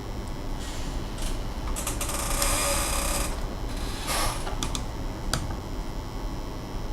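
Scraping and sharp clicks of hard plastic laptop parts being handled and worked with tools: a rasping stretch about two seconds in, a shorter one about four seconds in, then a few quick clicks, over a low steady hum.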